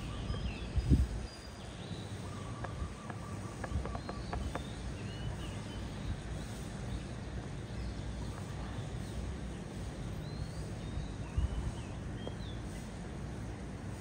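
Outdoor ambience of small birds chirping here and there over a steady low rumble, with one low thump about a second in.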